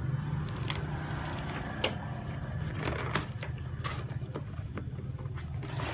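Plastic packaging and parts being handled during unboxing: irregular clicks and ticks, about half a dozen, over a steady low hum.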